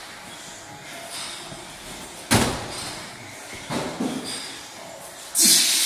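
A 40 kg sandbag thrown back onto a wooden platform, landing with one heavy thud about two seconds in, then lighter knocks as it is handled and a brief rushing hiss near the end.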